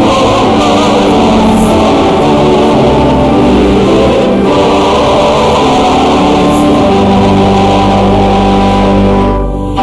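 Congregation singing a hymn together with musical accompaniment, dipping briefly just before the end.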